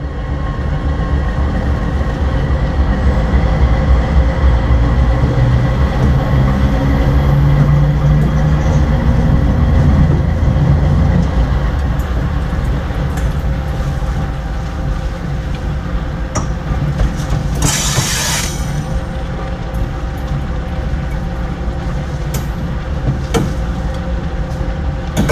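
Diesel-electric freight locomotive running light along a yard track, heard from its front coupler: a steady low engine drone with the wheels rolling on the rails and a few sharp clicks. The drone eases after about ten seconds, and a short hiss comes about two-thirds of the way through.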